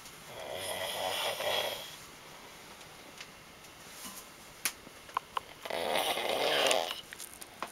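A man snoring in his sleep: two long snores, each about a second and a half, roughly five seconds apart, with a few sharp clicks between them.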